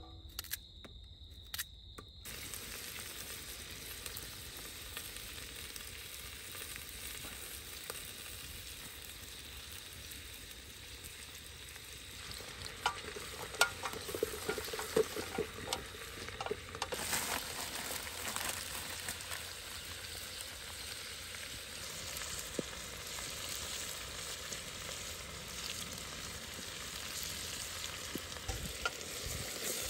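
Food sizzling in a pan, a steady hiss that starts abruptly about two seconds in, with a number of sharp clicks and taps partway through.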